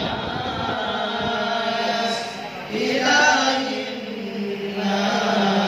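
A group of boys chanting together in unison, holding long notes, with a short pause for breath a little before halfway, after which the chant comes back louder.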